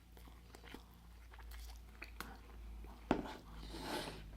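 Chewing a soft, greasy pulled-pork sandwich: faint wet mouth sounds and small clicks, with one sharper click about three seconds in and a short hiss near the end.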